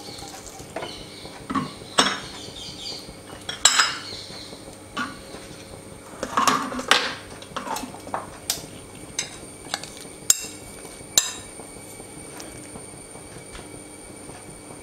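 Metal spoon clinking against a nonstick pan while ghee is spooned in: scattered sharp clinks, some ringing briefly, with the ghee itself barely sizzling.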